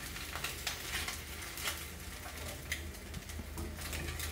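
Egg frying in oil in a non-stick pan: a soft steady sizzle with scattered crackles, with metal tongs clicking and scraping against the pan as they work under the egg.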